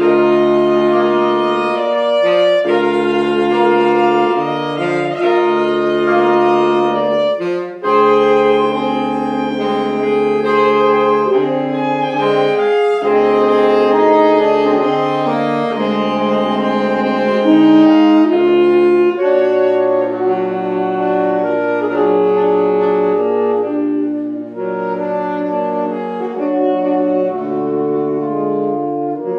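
Saxophone quartet of soprano, alto, tenor and baritone saxophones playing sustained chords, the lowest part moving in short phrases with brief breaks. About 19 seconds in, the texture thins and the lowest voice holds one long low note under the upper parts.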